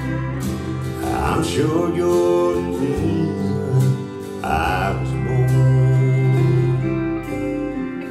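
Country song playing: a guitar-led instrumental passage with sustained chords and no sung lines.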